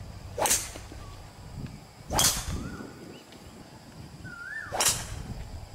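Golf club swung hard through the air three times, each a short whoosh with no ball struck, as in practice swings.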